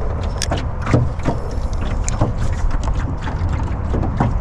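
Wind rumbling on the microphone, with a few short, sharp clicks and taps from the spinning rod and reel being handled in the boat.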